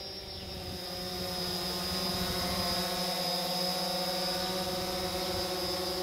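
Multirotor drone's motors and propellers whining steadily, several even tones with a high whine on top, growing slightly louder in the first couple of seconds.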